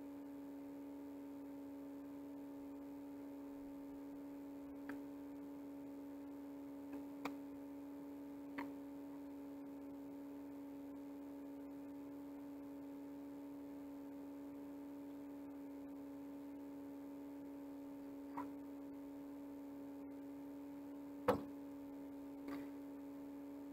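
Steady electrical hum at one fixed pitch with a few overtones. A handful of short, sharp taps or clicks sound over it, the loudest about 21 seconds in.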